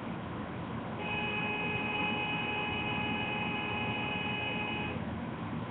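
A steady tone at several pitches at once starts about a second in and stops about four seconds later, over a constant hiss and hum.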